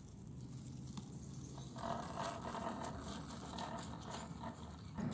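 Off-road hoverboard's electric hub motors whining faintly as it rolls on pavement, the wavering whine coming in about two seconds in over a low steady hum.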